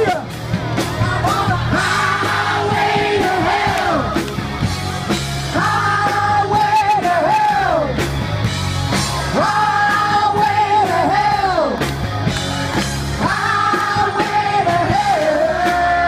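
Live rock band playing loud amplified music, with long held sung notes in three drawn-out phrases that each slide down in pitch at the end, and a crowd yelling along.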